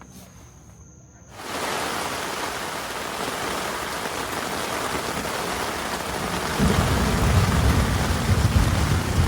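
Heavy rain pouring down, starting abruptly about a second in as a steady hiss. Past the midpoint a deep, uneven rumble joins it.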